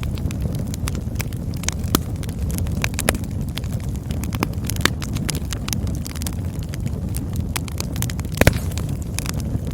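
Campfire burning with a steady low rumble and frequent sharp crackles and pops, the loudest pop about eight and a half seconds in.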